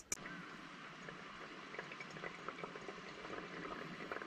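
Pour-over coffee brewing: hot water trickling through the grounds in a paper-filter dripper and dripping into a glass mug, a steady soft trickle with faint crackles.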